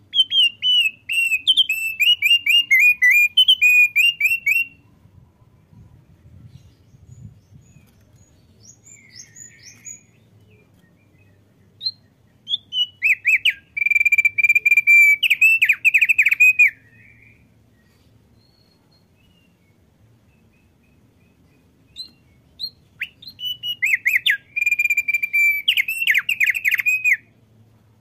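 Male thick-billed heleia (opior paruh tebal) singing in three bouts several seconds apart, each a rapid run of sharp chirped notes. The second and third bouts hold a steady whistle in the middle. A few soft notes fall in the pauses.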